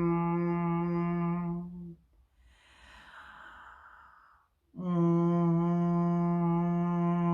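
A woman's voice toning: one steady, low hummed note held, breaking off about two seconds in for an audible in-breath, then the same note taken up again just before the five-second mark.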